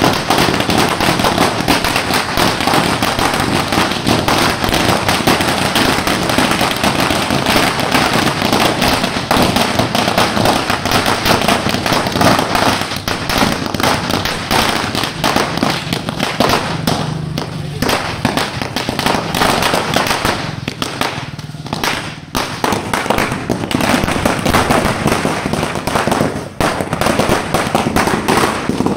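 Firecrackers going off in a dense, continuous rapid crackle of small bangs, thinning briefly twice past the middle.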